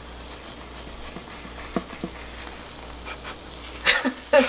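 Egg cooking in a rectangular egg-roll pan on a gas burner, a low steady sizzle, with a silicone spatula pushing and rolling the egg and two short scrapes about two seconds in. A short, loud vocal burst near the end.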